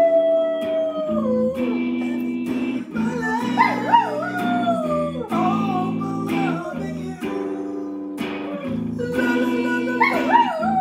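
Electric guitar strumming chords while a dog howls along with it: a long falling howl at the start and another long, wavering howl around the middle.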